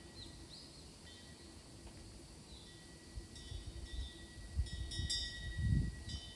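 Quiet outdoor ambience with faint, short high-pitched chirps and a thin steady high tone. Low rumbling thumps come in the second half, loudest near the end.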